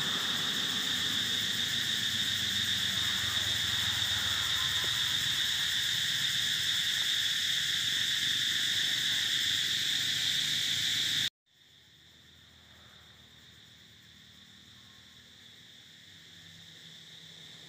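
Steady, high-pitched drone of insects. It cuts off abruptly about eleven seconds in and goes on much fainter after that.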